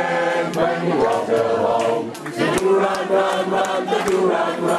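A group of men singing together unaccompanied, in a run of held notes.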